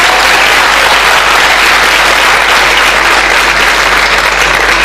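Applause: many people clapping steadily, including the choir on stage, after a performer is introduced.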